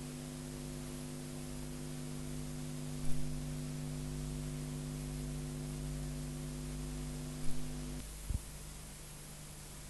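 Steady electrical mains hum with a stack of overtones over hiss, broken by short low thumps about 3 and 7.5 seconds in. The hum cuts out suddenly about 8 seconds in, followed by a brief double thump, leaving only hiss.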